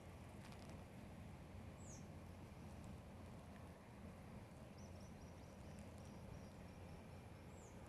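Faint outdoor ambience: a low steady rumble with a few faint bird chirps, including a quick run of short chirps about five seconds in.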